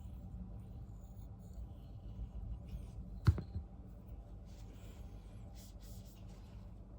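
Faint scratchy strokes of a steel knife blade worked on a fine diamond sharpening stone, with one sharp click a little over three seconds in, over a steady low hum.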